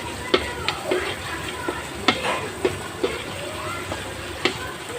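A spoon stirring a spiced curry gravy in a pan over a low sizzle, knocking against the pan sharply about seven times.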